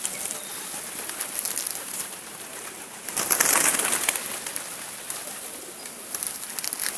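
A flock of feral pigeons cooing and flapping their wings, with a loud flurry of wingbeats about three seconds in.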